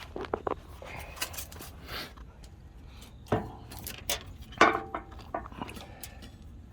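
Scattered light metal clinks and knocks as the snowblower's auger control cable and its hook are handled and worked into place, the loudest about four and a half seconds in.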